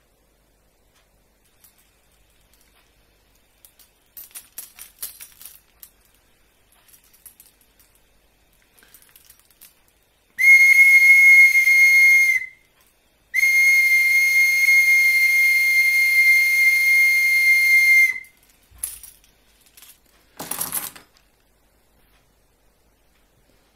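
Deer antler whistle blown in two blasts, a short one and then a longer one of about five seconds. Each is a steady, high-pitched whistle with a breathy hiss.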